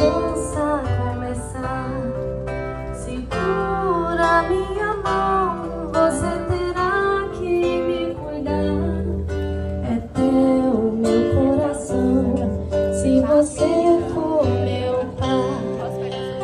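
Music: a song with strummed acoustic guitar and held bass notes under a moving melody line.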